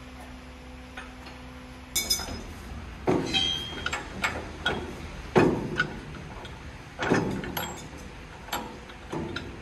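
Heavy metallic clanks, about half a dozen at irregular intervals of a second or so, each ringing briefly: a long steel bar striking the steel log carriage of a band sawmill. A steady hum stops about two seconds in.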